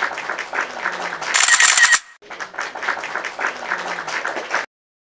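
A small group clapping hands in applause, with a short, louder burst of noise about a second and a half in; the clapping cuts off suddenly near the end.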